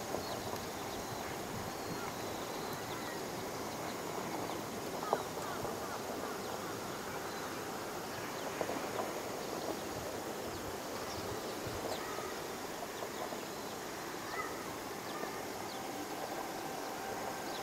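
Steady outdoor background noise with faint, scattered insect chirps.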